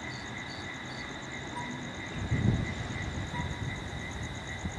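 Crickets chirping in a steady pulsing rhythm over background hiss, with a brief low rumble about two seconds in.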